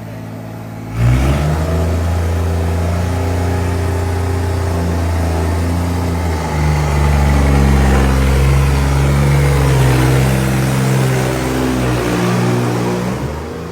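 New Holland 3630 tractor's diesel engine, with a modified fuel injection pump, revved suddenly to full throttle about a second in and held at high revs under a brake load test. It gets louder with a shift in pitch about halfway, then drops back near the end.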